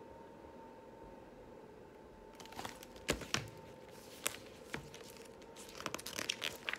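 Paper pages of a picture book being handled and turned: faint room hum at first, then about two seconds in a run of paper rustles and sharp clicks, growing busier near the end.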